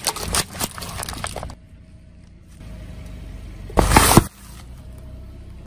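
Car tyre rolling over plastic cups of expired layered jelly, the cups cracking and squishing for about a second and a half. Then a quieter car running under the tyre, and about four seconds in one loud sharp crunch as the tyre crushes a small plastic object.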